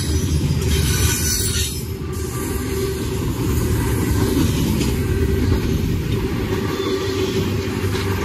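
A train passing close by: a steady, loud rumble of its wheels on the rails.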